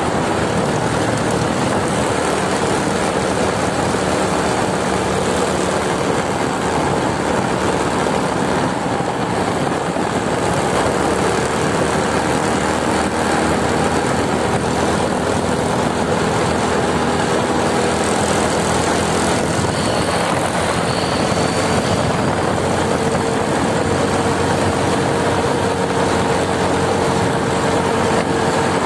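Motorcycle engine running at a steady cruising speed, mostly covered by rushing wind on the microphone while riding.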